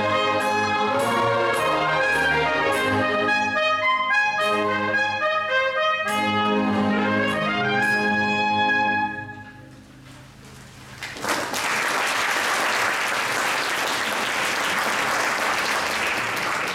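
A classical orchestra with brass plays the last bars of a piece, stopping about nine seconds in. After a short pause the audience breaks into applause.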